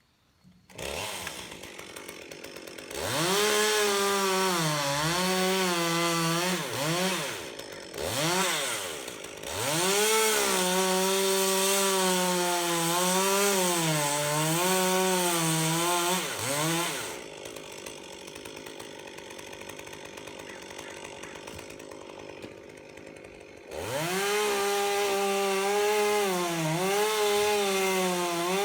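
Two-stroke chainsaw cutting redwood. It idles, then runs at full throttle with the pitch sagging and recovering as the chain bites into the wood. It drops back to idle about two-thirds of the way through, then revs up and cuts again near the end.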